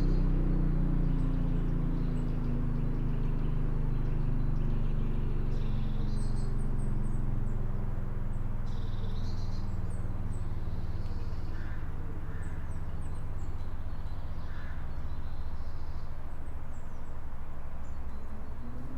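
Small birds chirping now and then over a steady low hum, which slowly drops in pitch during the first several seconds and then holds level.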